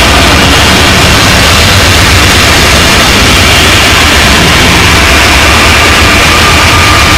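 Raw black metal recording: distorted guitars smeared into a dense, blown-out wall of hissing buzz, heavily compressed so the beat is buried. It holds a steady loudness, with faint held guitar notes showing through near the end.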